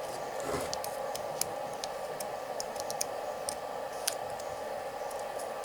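Light, irregular clicks and ticks of insulating separators being pressed by hand into the slots of a ceiling fan's rewound stator coil, over a steady background noise.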